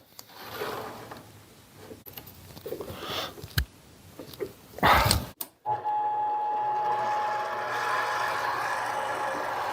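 Mini lathe working 6061 aluminium: irregular clunks and scraping for the first five seconds or so, loudest about five seconds in, then after a short break the lathe's motor runs steadily with a thin high whine.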